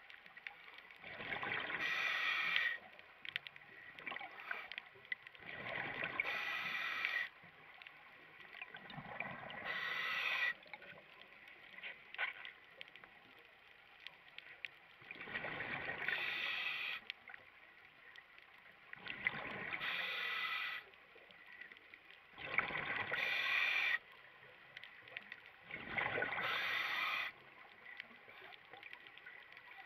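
Scuba diver breathing through a regulator underwater: seven bursts of exhaled bubbles, each about a second and a half long, come every three to five seconds, with a faint hiss between them.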